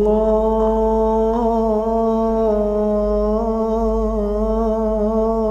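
A man's voice humming one long held note that wavers slightly in pitch, in the style of a Sufi chant, over a steady low drone.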